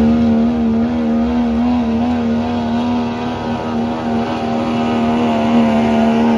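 Dodge Ram diesel pickup pulling a weight-transfer sled at full throttle. The engine is held at steady high revs under heavy load, its pitch wavering slightly.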